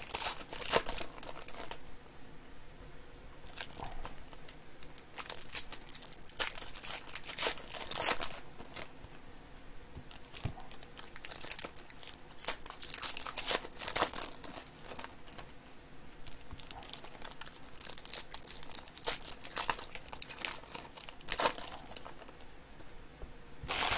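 Foil wrappers of trading-card packs crinkling and tearing as they are handled and opened by hand. The crackles come in irregular clusters with short quieter gaps between them.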